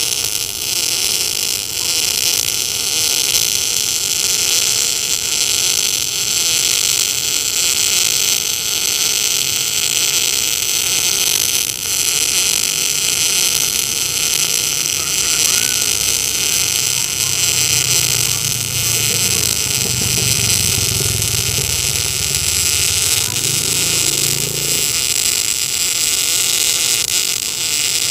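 Tenya NBC-288 welder in MIG mode laying a bead on a corner joint: a CO2-shielded arc on ER70S-6 wire, a steady, loud hiss without a break. The arc is running smoothly.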